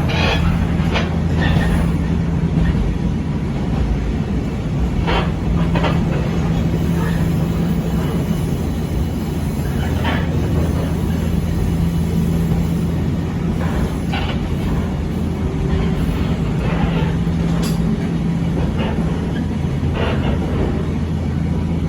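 Echizen Railway 5001 series railcar running along the track: a steady low rumble and hum, with the wheels clacking sharply over rail joints now and then.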